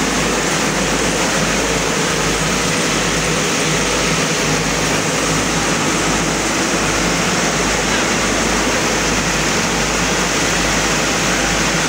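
Mobile flood-control pump's engine running steadily, a loud, even din with no breaks.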